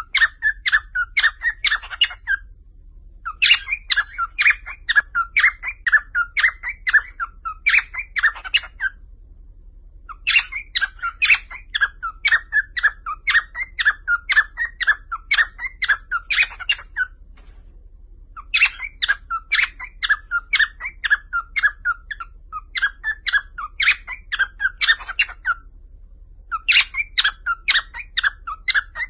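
Cockatiel chirping rapidly, about three or four chirps a second, in bouts of several seconds broken by short pauses.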